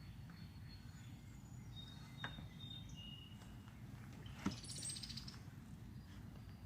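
Faint birds calling with thin high whistled notes, and a rapid high trill about four and a half seconds in, over a steady low rumble. Two sharp taps stand out, a small one about two seconds in and a louder one just before the trill.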